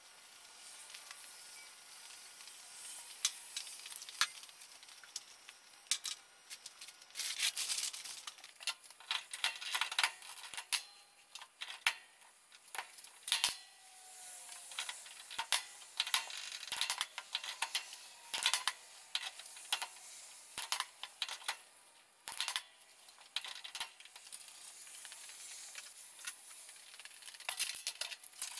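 MIG welding the Dana 44's nodular-iron inner C knuckle to the axle tube with mild-steel wire: the arc crackles and sizzles in stop-start runs, spatter popping sharply, with short pauses between beads.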